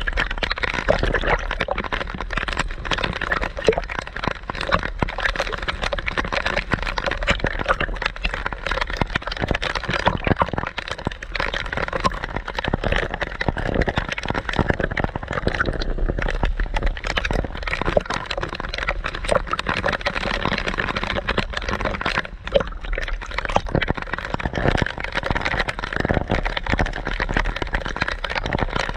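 Sea water sloshing and splashing around a camera held half-submerged at the surface, a dense steady crackle with gurgling.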